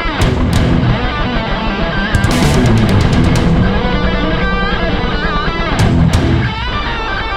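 Background rock music driven by electric guitar, with bent, wavering guitar notes over a steady low end.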